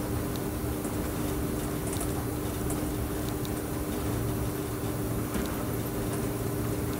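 Electric train running steadily along the line, heard from inside: an even rumble of wheels on rail with two steady humming tones over it and a few faint light ticks.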